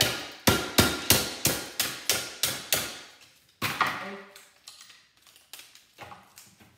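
Hammer blows on a tube TV's copper-wound deflection yoke clamped in a bench vise, about three sharp strikes a second, with a last blow just under four seconds in. The blows break the yoke's core so the copper winding can be peeled off. Faint clicks of the broken pieces being handled follow.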